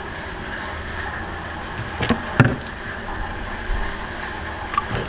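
Steady hum of an open kitchen freezer, with two sharp knocks about two seconds in as plastic ice tubs are handled, and a couple more near the end.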